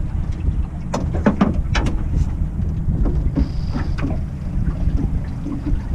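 Wind buffeting an open-air microphone on a boat, a heavy low rumble throughout. A few sharp clicks and knocks come about a second in.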